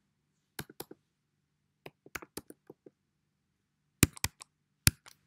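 Computer keyboard typing: short runs of key clicks with pauses between them, ending in two sharper, louder keystrokes.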